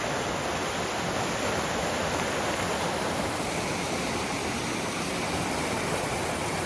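Brook water rushing steadily over rocks in a clear mountain stream.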